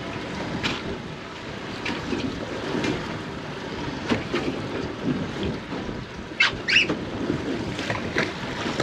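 Wind on the microphone and water moving around a small boat's hull, with scattered short sharp sounds, the loudest cluster about six and a half seconds in.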